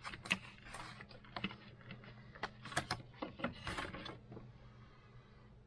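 Irregular light clicks, taps and rustles of a CPU and small hardware being handled and set onto a motherboard's socket, dying away after about four and a half seconds.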